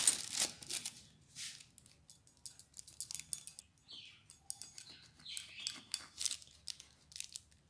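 A kitchen knife slitting open soft kulcha breads: short, sparse scraping and rustling cuts with pauses between them.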